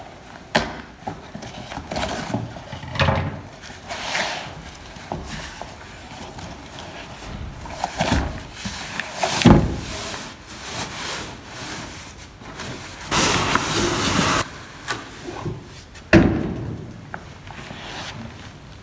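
Unboxing handling noise: scissors cutting into a long cardboard shipping box, then the cardboard rustling and scraping as the box is pulled up off a padded carrying bag, with a few sharp knocks against the desk.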